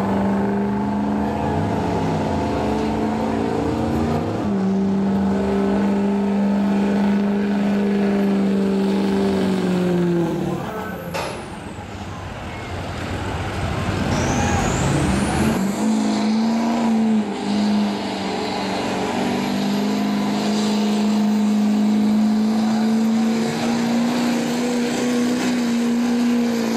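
Diesel pickup truck engines running hard under load while dragging a pulling sled, a steady high-revving drone. About ten seconds in the engine note sags and fades as one pull ends; about sixteen seconds in a second truck's engine takes up the same steady drone.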